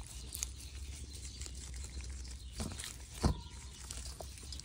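Gloved hand tossing and pressing seasoned raw chicken thighs in a stainless steel bowl: soft wet slaps and pattering over a low steady hum. About three seconds in, one louder thump as a piece hits the bowl, which rings briefly.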